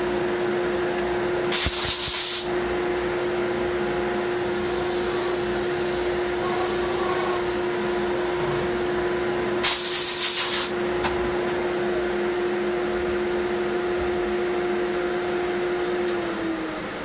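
Electric power sander running with a steady hum, with two short, loud, hissing rasps of sandpaper working wood about two and ten seconds in. Near the end the motor is switched off and winds down, its hum sagging in pitch and fading.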